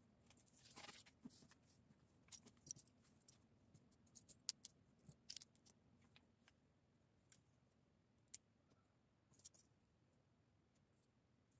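Plastic Lego bricks being handled: a short rustle of rummaging through a loose pile of pieces, then scattered sharp clicks as parts are picked up and pressed together.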